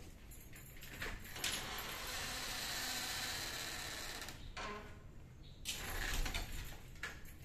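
Kittens scrabbling in and against a cardboard box: claws scratching and rustling the cardboard in a long stretch starting about a second in, then another short burst near the end.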